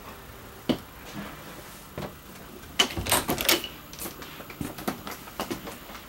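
Scattered clicks and knocks of footsteps and a door being handled in a small room, with a clatter of several loud knocks a little before the middle and lighter knocks after it.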